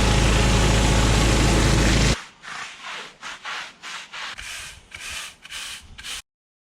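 Pressure washer running, its engine humming low under a loud steady spray hiss. It then breaks into a series of short spray bursts, about two a second, and cuts off suddenly.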